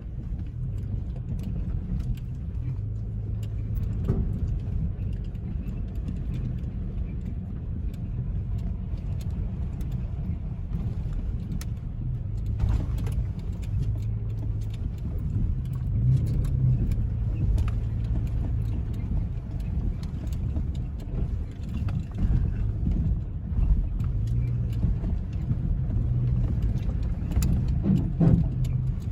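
Off-road 4x4 engine running at low revs while crawling over rocky trail, with a few sharp knocks along the way.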